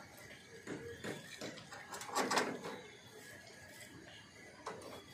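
Light knocks and clicks of aluminium solar-panel mounting parts being handled against the panel frame, with one louder scrape about two seconds in.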